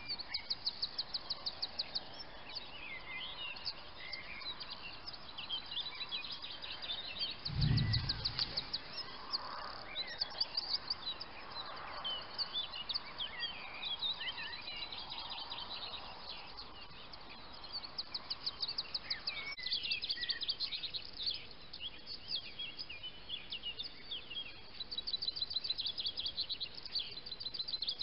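Wild birds singing and chirping, with repeated rapid trills of high, evenly spaced notes among scattered short calls. A brief low thump comes about eight seconds in.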